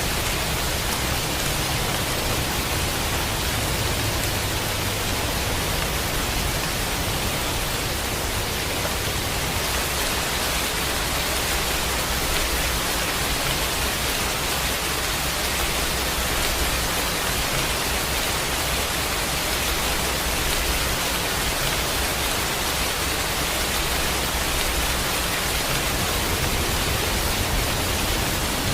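Heavy, steady rainfall: a dense, even hiss of rain with no single drops or thunder standing out.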